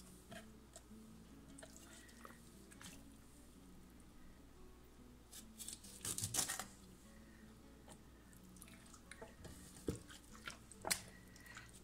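Kitchen knife cutting the tips off a raw chicken's wings on a wooden cutting board: faint clicks and knocks of the blade through the joint and against the board, with a louder crunching cluster about six seconds in and a few sharp knocks near the end.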